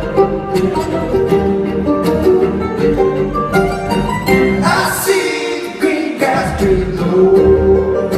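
Acoustic string band playing live, an instrumental passage with fiddle, banjo, mandolin, guitar and double bass. The bass drops out for about a second halfway through while a bright, high sound rises over the strings.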